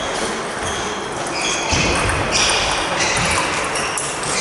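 Table tennis balls clicking off bats and tables in quick, irregular strokes, from rallies at several tables at once in a large hall, with a background hum of voices and a couple of low thuds.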